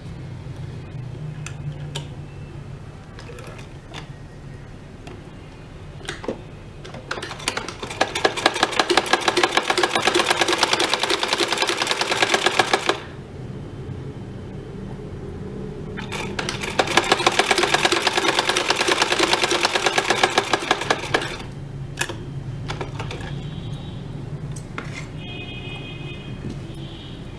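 Domestic straight-stitch sewing machine stitching a fabric strip in two runs of rapid, even needle strokes, each lasting about five to six seconds, with a short pause between them. Before, between and after the runs come small clicks and handling of the cloth and machine.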